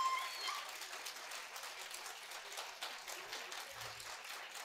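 Audience applauding, the clapping slowly thinning out, with a brief high falling call right at the start.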